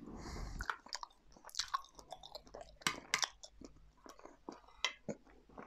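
A person chewing and biting a mouthful of curry, with scattered small clicks of a spoon working in a metal dish. A short rush of noise comes right at the start.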